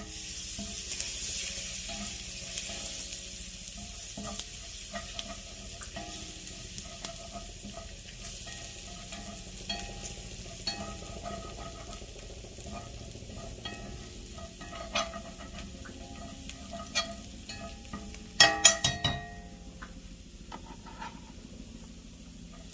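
Chopped garlic sizzling in avocado oil in a pan as it turns fragrant, stirred with a utensil that clicks now and then against the pan. About three-quarters of the way through comes a short burst of louder clatter.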